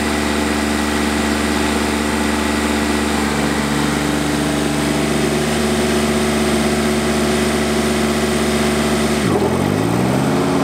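Kubota zero-turn riding mower's engine running steadily under mowing. Near the end the engine note dips sharply and climbs back up over about a second.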